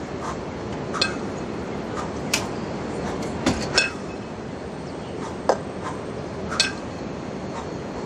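Pair of 20 kg kettlebells clanking against each other with short ringing metal clinks, about one every second, irregularly spaced, as they are swung, cleaned to the chest and jerked overhead. A steady background rumble runs underneath.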